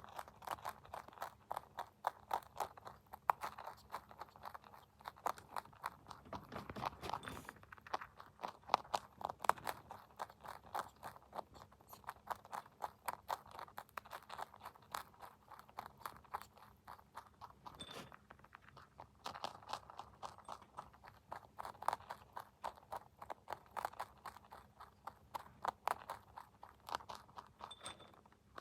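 A rabbit crunching and chewing dry feed pellets: rapid, continuous crisp crunches, several a second, with a few brief pauses.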